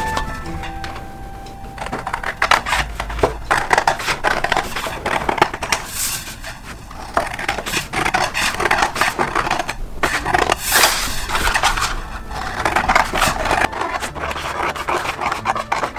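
Scissors cutting through a large sheet of pattern paper: a quick, irregular run of snips with the paper rustling as it is cut and handled.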